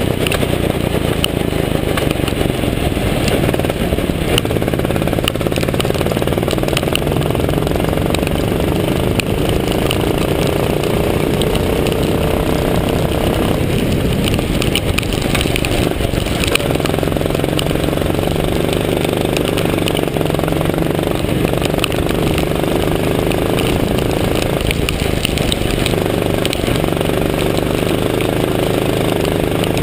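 Go-kart's small petrol engine running hard on track, its note rising and falling with the throttle through the corners, under steady rushing wind noise on the onboard camera.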